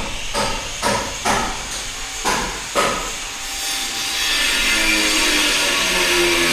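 Hammer strikes on wood, about two a second, for the first three seconds. Then a small gasoline engine runs steadily and loudly from about four seconds in.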